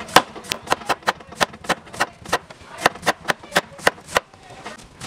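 Chef's knife shredding cabbage on a wooden cutting board, the blade knocking the board about four times a second, with a brief pause near the end.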